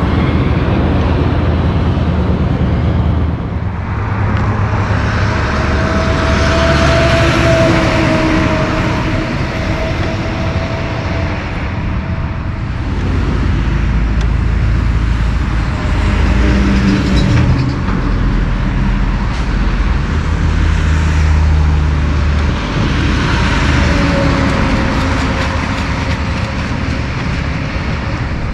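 Highway traffic passing: tractor-trailers and cars going by one after another, the engine rumble and tyre noise of each swelling and fading as it passes.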